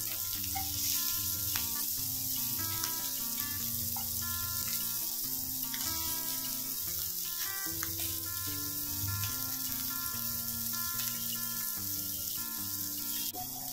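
Rice-flour-coated mandeli (golden anchovies) shallow-frying in hot oil in a non-stick pan: a steady sizzle with a few light clicks as the pieces are turned over. Soft background music plays underneath.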